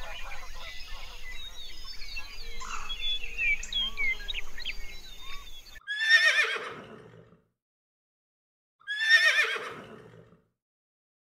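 Chirping birdsong over a low hum, which cuts off abruptly about halfway in. A horse then whinnies twice, each a quavering call about a second and a half long that falls in pitch, about three seconds apart.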